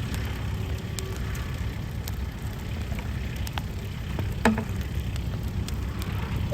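Large brush bonfire burning, crackling with scattered sharp pops over a low steady rumble; one louder pop comes about halfway through.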